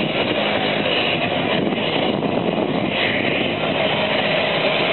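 Steady, even engine noise of a distant jet airliner, without clear tones or breaks.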